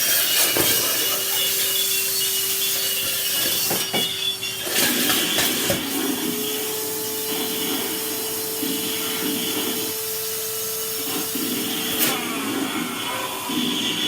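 Vacuum cleaner running with a hissing suction noise and a steady motor hum, whose pitch steps up about six seconds in as it sucks up food.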